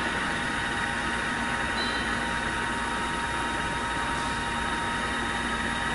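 Rotary friction welding machine running, a spinning steel part pressed against a fixed one until the joint glows red hot: a steady mechanical hum with a few held whining tones over a hiss.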